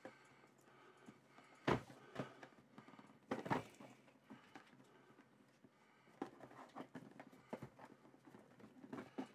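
Hands working a tight-fitting cardboard board-game box lid loose: faint scuffs and scrapes of cardboard, with sharper knocks about two and three and a half seconds in.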